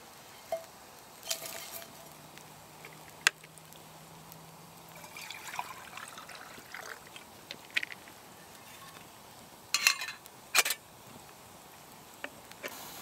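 Hot wood campfire crackling over a faint hiss, with sharp pops from the burning logs: one loud snap about three seconds in and a louder pair near ten seconds.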